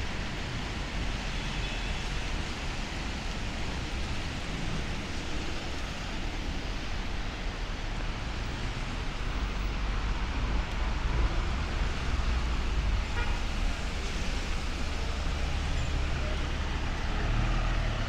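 City avenue traffic on wet streets: a steady rumble of cars and trucks with the hiss of tyres on wet pavement, a heavier vehicle swelling louder midway and again near the end, and a brief car horn toot early on.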